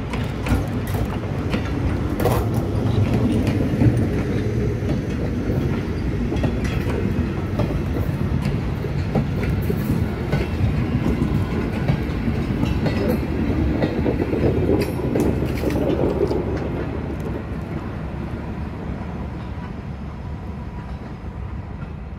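Diesel locomotive 636 and its work train passing close by: a low engine rumble mixed with the wagons' wheels clacking over the rail joints. The sound fades away from about two thirds of the way in as the train moves off.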